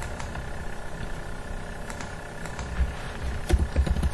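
Steady low background hum with scattered faint clicks, a quick cluster of them near the end, typical of typing on a computer keyboard.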